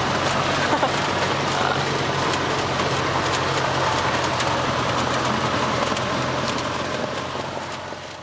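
Cessna 152's four-cylinder Lycoming engine and propeller running steadily at low power while the plane taxis, heard from inside the cockpit; the sound fades out near the end.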